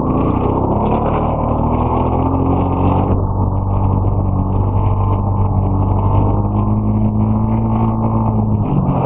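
Four-wheel-drive ATV engine running under way, its note shifting about three seconds in and dropping near the end.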